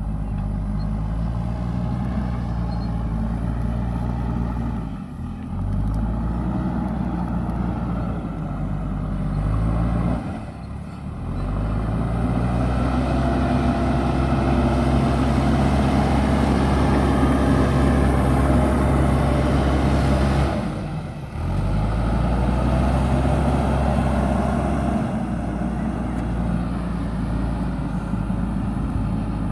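JCB backhoe loader's diesel engine running steadily while the machine works, louder for a stretch in the middle, with three brief dropouts where the sound cuts off and resumes.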